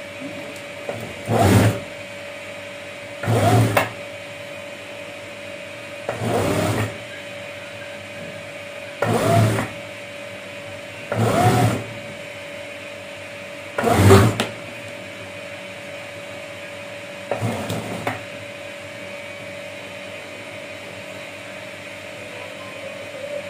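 MAQI industrial lockstitch sewing machine stitching in seven short runs, each under a second, two to three seconds apart, with a steady hum underneath throughout.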